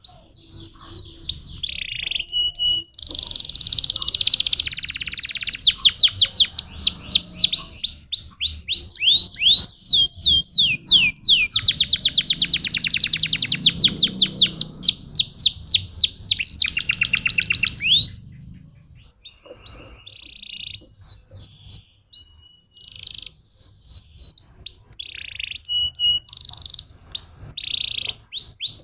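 Canary singing: long rapid trills of repeated downward-sweeping notes, loud and nearly continuous for most of the first two-thirds. After that come shorter, quieter broken phrases with pauses between them.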